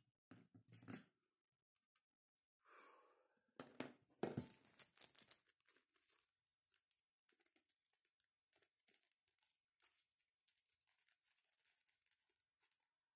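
Thin plastic sheet protector crinkling and rustling as it is handled, loudest around four seconds in, then fainter crackles. Near the start there is a short clatter as the soldering iron is set into its coiled-spring stand.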